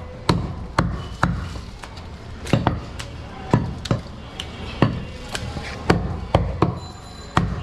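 A butcher's knife chopping goat meat against a round wooden chopping block, with sharp, irregular strikes about two a second.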